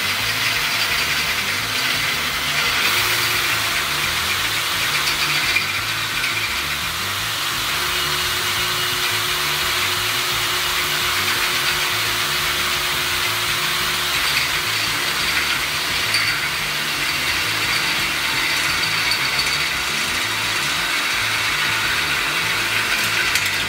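Einhell TE-CD 18/50 Li-i BL 18 V brushless cordless drill running steadily in low gear (speed 1), a 13 mm high-speed-steel bit cutting through steel square tubing without a pilot hole.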